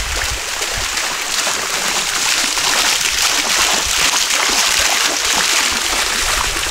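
Two swimming-pool fountain jets spraying water upward and splashing back onto the pool surface: a steady splashing of falling water.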